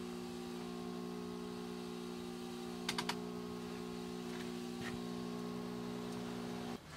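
Steady low motor hum with three quick clicks about three seconds in; the hum cuts off shortly before the end.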